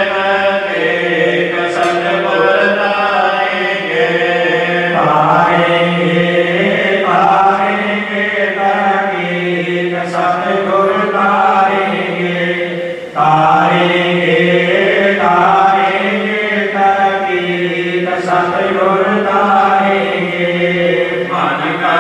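Devotional aarti chanting: a sung melodic line in long held phrases over a steady low drone, with a short break about 13 seconds in.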